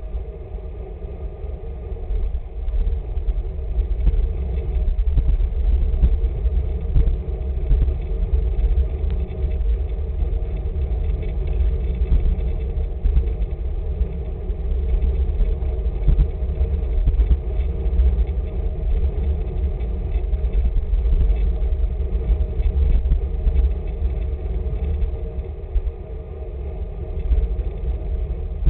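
Wind rushing over the microphone of a camera on a moving road bicycle: a constant low rumble whose loudness flickers rapidly, with no letup.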